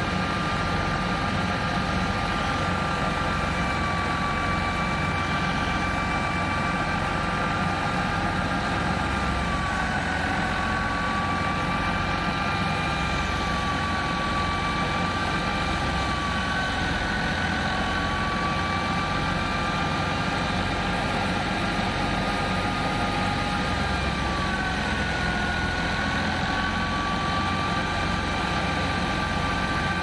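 Wheat thresher running off the PTO shaft of a Fiat 480 tractor, its three-cylinder diesel engine under load. The machine makes a steady heavy rumble with a high mechanical whine, and the whine sags slightly in pitch a few times as bundles of wheat are fed into the drum.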